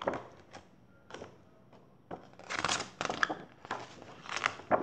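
Paper rustling and handling noise from a picture book being opened and its pages moved close to the microphone, in about five short bursts.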